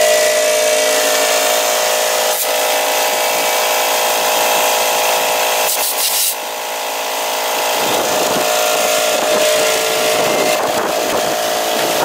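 Portable electric air compressor running with a steady hum while it inflates a stretched tire whose bead has just been seated.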